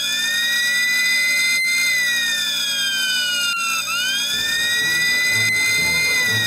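Fire alarm siren wailing in a repeating cycle: the pitch rises over about two seconds, then slides down for about two more, and a second cycle starts about four seconds in.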